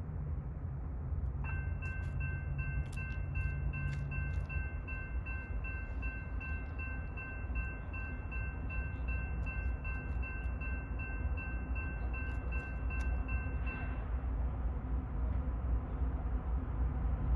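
Diesel freight locomotive approaching with a low engine rumble, sounding its air horn as a chord of several notes in one long steady blast of about twelve seconds, starting about a second and a half in and cutting off sharply.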